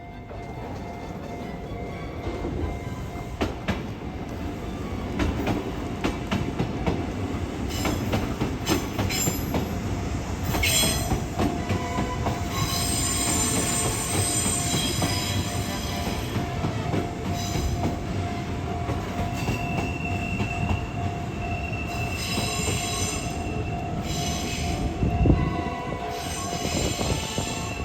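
A Kintetsu train passing slowly through the level crossing, its wheels squealing on and off in high-pitched stretches over the rumble of the cars. A level-crossing warning bell rings steadily throughout, and there is a single heavy thud near the end.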